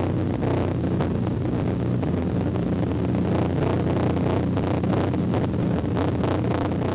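Steady low rumbling hum of a sci-fi flying saucer sound effect, with a faint flutter running through it.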